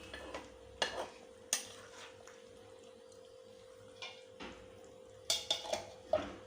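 Metal cookware and utensils clinking and clattering in a kitchen: a scattering of sharp knocks and clinks, several of them in quick succession near the end.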